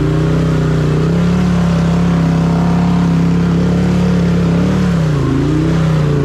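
Can-Am Outlander 800's V-twin engine revving hard under load through a mud hole. The revs climb about half a second in and hold high and steady, then dip briefly near the end before picking up again.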